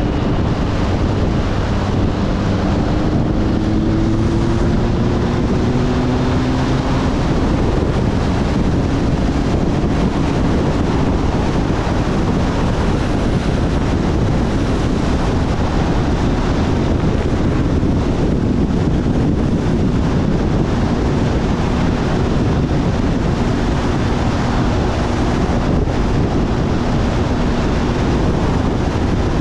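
Kawasaki ZRX1100 motorcycle on the move: wind buffets the camera microphone over the inline-four engine's running note. The engine note rises for a few seconds near the start as the bike accelerates, then holds steady.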